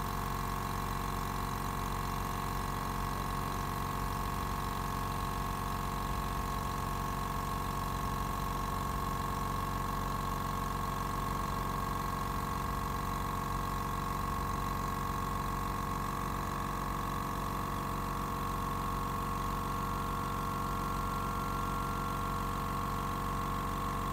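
Stanley DST 100/8/6 750 W silent air compressor running steadily, pumping air into its 6-litre tank, with an even hum and a clear high whining tone over it.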